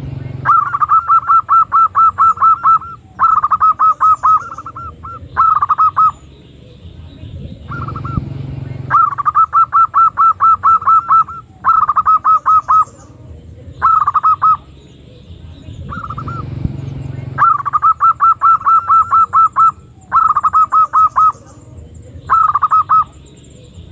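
Female zebra dove (perkutut) lure call: runs of quick, hooked notes, about five a second. Each run lasts from under a second to about two and a half seconds, with short pauses between.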